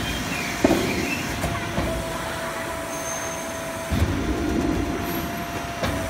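Sheet-metal folding machine on an automatic duct line bending a galvanized steel duct sheet. A clunk about half a second in and a heavier clunk with a rumble near four seconds come from the machine's moving parts, with a steady machine whine between them.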